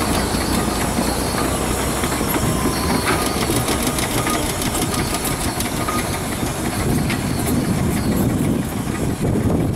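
A road steam engine working uphill under load, a steady run of exhaust beats and mechanical clatter with a low rumble.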